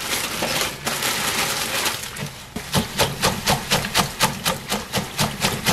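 Water rushing steadily into a stainless steel bowl in a sink, then a bunch of garlic chives plunged up and down in the water, splashing rhythmically about three times a second to shake soil from the roots.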